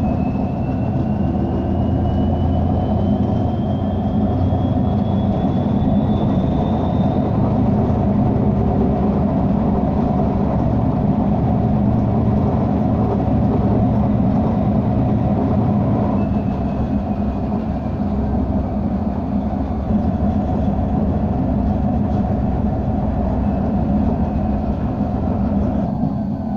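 Inside a Bombardier Incentro tram running between stops: a steady rumble of wheels on rail and running gear. Over the first several seconds a motor whine rises in pitch as the tram picks up speed. Near the end a falling whine sets in as it begins to slow.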